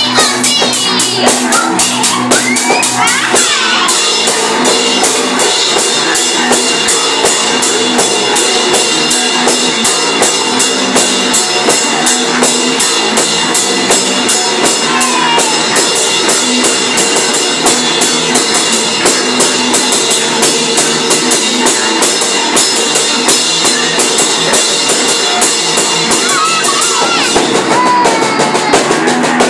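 Live rock played by a bass-and-drums duo: electric bass under a fast, steady drum-kit beat with rapid, even cymbal strokes.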